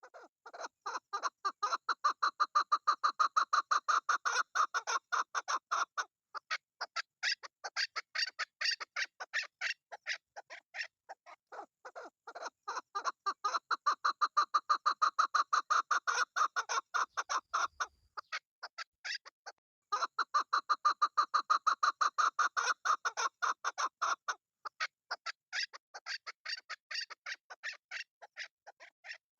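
Chukar partridge calling: long runs of rapid, repeated short notes that swell into loud bouts three times, with softer runs between and a brief pause about two-thirds of the way through.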